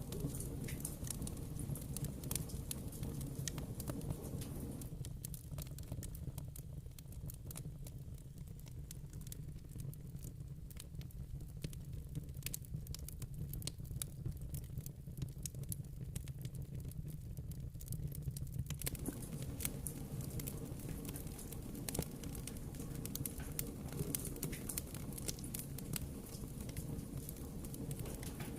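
Wood fire in a fireplace crackling, with many small irregular pops and snaps over a steady low rumble.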